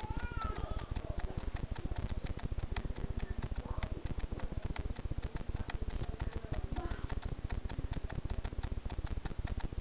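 Rapid, steady clicking or crackling, many sharp ticks a second, with a brief faint hum of voice near the start.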